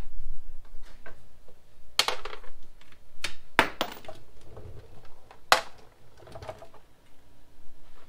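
Metal clinks and knocks from tools and parts being handled at a motorcycle's rear wheel and exhaust: about four sharp strikes, each ringing briefly.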